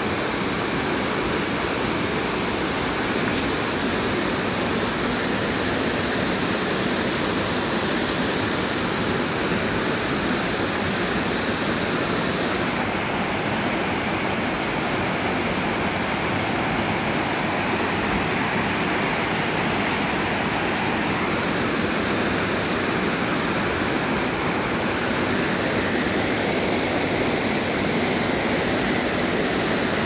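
Mountain river rushing, a steady, unbroken water noise.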